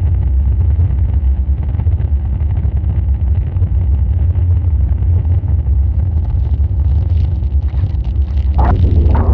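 Harsh noise music: a dense, loud wall of distorted low rumbling drone with a crackling hiss above it. It starts abruptly out of silence, and brighter crackling bursts join near the end.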